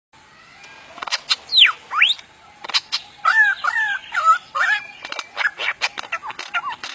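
Lyrebird song made of mimicked sound effects. Sharp cracks and a steep falling then rising whistle sweep are followed by a run of looping warbled whistles, then a fast string of clicks and short notes. The gun-like sounds are the bird's mimicry.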